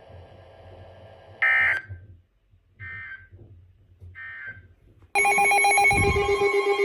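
Weather radio's three short end-of-message SAME data bursts, about a second and a half apart, following the end of a severe thunderstorm warning. About five seconds in, a loud, pulsing electronic alert tone starts.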